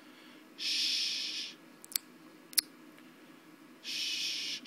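Two soft, breathy hisses, each about a second long and about three seconds apart, with two sharp clicks between them.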